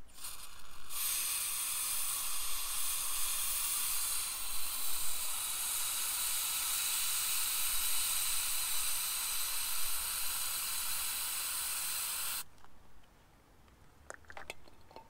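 Aerosol can of VHT stripper spraying into a plastic lid: one long continuous hiss that thickens about a second in and cuts off sharply near the end, followed by a few faint clicks.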